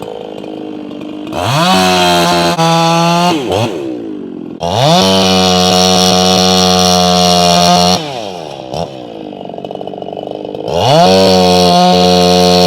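Echo C4910 two-stroke chainsaw idling, then revved to full throttle three times, dropping back to idle between the runs.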